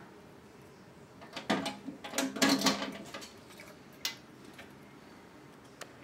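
Red steel cabinet door of a Fire-Lite MP-12 fire alarm control panel being opened: a cluster of clicks and rattles from the latch and door, then a single sharp click about four seconds in.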